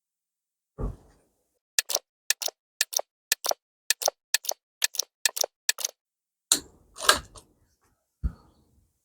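PCP air rifle firing .177 pellets in fast-forward: a rapid string of sharp cracks, mostly in close pairs, about two pairs a second, with a few duller thumps before and after.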